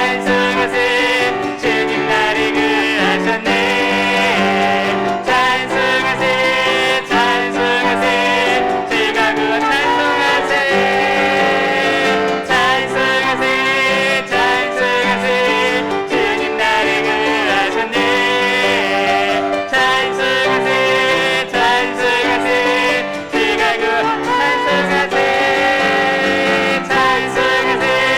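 A church praise team singing a worship song with piano accompaniment, the music continuous throughout.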